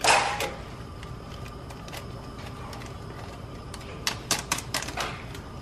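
Metal spoon knocking and clicking against a stainless steel pan as thick chili is stirred. A sharp knock comes at the start, then a quiet stretch, then a quick run of clicks near the end.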